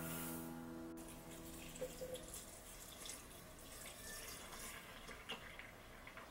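Milk being poured from a measuring cup into a plastic blender jar, a faint pouring and splashing of liquid.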